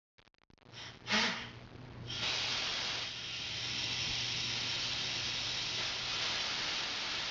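Steady, even hiss of rain from a rain sound effect with a low hum beneath, settling in about two seconds in after a brief louder burst.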